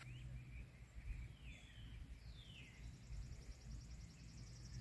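Quiet outdoor ambience with a few faint bird chirps, short notes that slide down in pitch. Near the end a fast, evenly pulsing high insect trill starts up.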